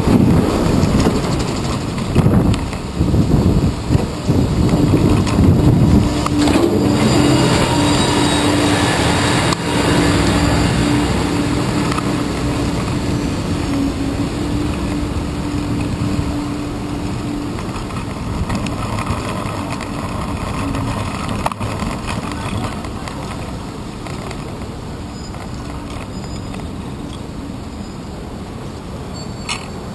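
Bicycle riding through city traffic, heard from a handlebar-mounted GoPro: a steady rumble of tyres and wind on the camera, with jolts over rough pavement in the first few seconds. The engine of a box truck running just ahead adds a steady hum through the middle of the stretch.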